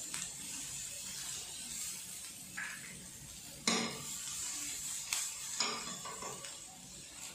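Sliced onions sizzling in hot oil in a stainless steel pan as they are sautéed and stirred with a silicone spatula. A few sharp knocks and clinks from the pan break in, the loudest a little over halfway through.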